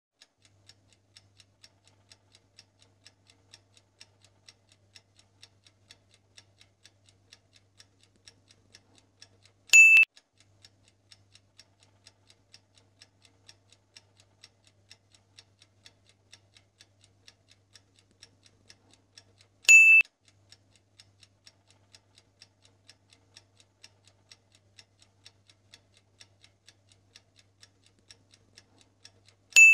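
Countdown-timer sound effect: a clock ticking faintly and fast at a steady pace, broken about every ten seconds by a short, loud, high-pitched double beep.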